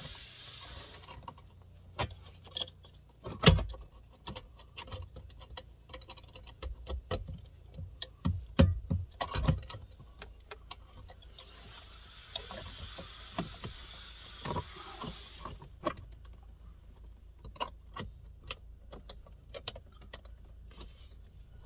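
Plastic wiring plugs and the ECU being handled and pushed into place: scattered small clicks and knocks, with one louder knock about three and a half seconds in and a stretch of rustling around the middle.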